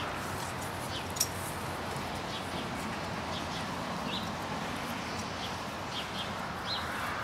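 Outdoor background: a steady hiss with scattered short bird chirps, and one sharp click about a second in.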